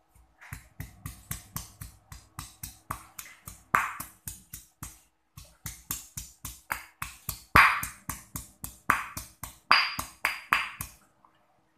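Stone pestle pounding fresh turmeric in a granite mortar: a steady run of sharp stone-on-stone thuds, about four a second, with a short pause about five seconds in.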